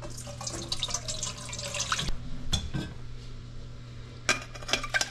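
Melted beef tallow poured from a pot through a wire-mesh strainer into a stainless steel bowl, splashing and trickling for about two seconds. Then several sharp metallic clinks and knocks of the pot and strainer against the bowl and sink.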